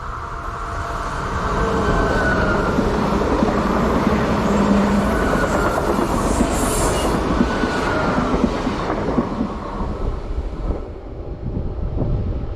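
Train passing close by: the rumble and wheel noise build over the first two seconds, stay loud with a faint high wheel squeal, and ease off over the last few seconds.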